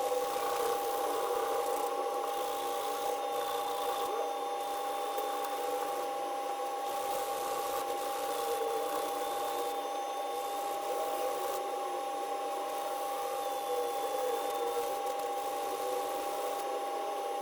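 Hand-sanding of cured filler on a steering wheel, a continuous rubbing and rasping to smooth the patch over the covered logo, with a steady hum underneath.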